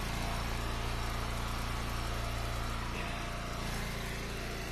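The small gas engine of an Eastonmade hydraulic log splitter running steadily at an even pitch.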